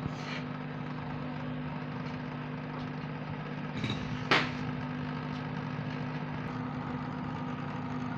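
Heat gun blowing hot air in a steady hum with a hiss, heating a phone's charging jack to desolder it from the board. A single sharp click about four seconds in.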